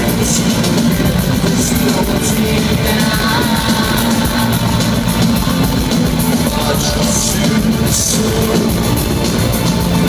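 Live rock band playing loudly through an arena PA, heard from within the crowd: electric guitars, drums with cymbal crashes and a singing voice.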